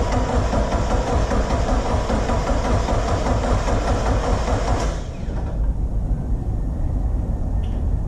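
An engine running steadily with a deep rumble. A louder, brighter layer of noise over it stops abruptly about five seconds in, leaving the low running sound.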